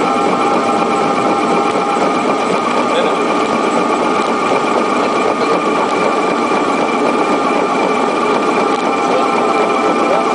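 Steady jet engine whine and rumble inside the cockpit of an MD-82 on its landing run, with several fixed whining tones over a dense rushing noise.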